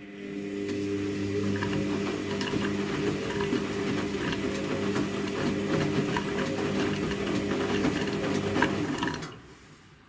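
Front-loading washing machine tumbling a wet wash load: the motor hums steadily under many small clicks and sloshing from the laundry. The sound starts at once and stops about nine seconds in as the drum comes to rest.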